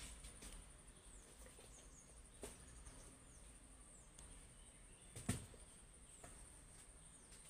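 Faint insect trill, a steady high-pitched pulsing tone, with small falling chirps repeating every second or so and a few soft clicks, the loudest about five seconds in.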